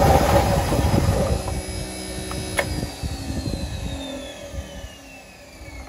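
Battery-electric Snapper rear-engine riding mower, driven by a Motenergy ME-1004 DC motor, running and fading down. A sharp click comes about two and a half seconds in, and a high whine then falls slowly in pitch as the motor winds down.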